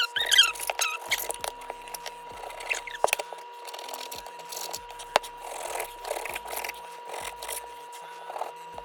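A kitchen knife cutting and scraping through raw pork on a cutting board, with a few sharp knocks of the blade on the board. A faint steady tone runs underneath.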